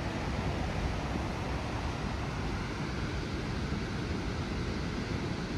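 Steady rushing noise of Snoqualmie Falls, a 268-foot waterfall, with no change or break.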